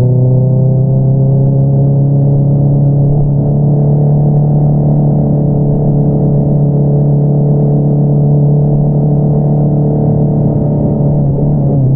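2022 Honda CBR650R's inline-four engine running through an Akrapovič single-outlet exhaust at steady throttle. Its pitch climbs gently over the first few seconds, holds steady, then dips briefly near the end.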